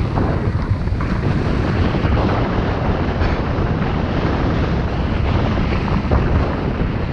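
Wind buffeting the microphone of a skier's action camera while skiing down a piste: a loud, steady, deep rush of wind noise with no letup.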